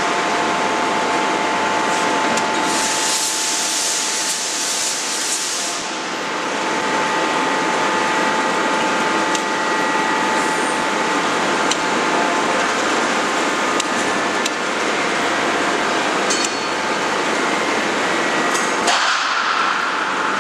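A 16-ton hydraulic closed-die forging hammer and its hydraulic power unit running with a steady hum and whine. A hiss starts about three seconds in and lasts some three seconds, and several short sharp knocks come in the second half.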